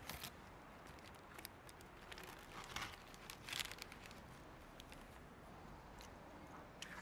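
Faint paper sandwich wrapping rustling and crinkling as it is handled, with a few short crunches of a bread roll being bitten and chewed, the strongest about three and a half seconds in.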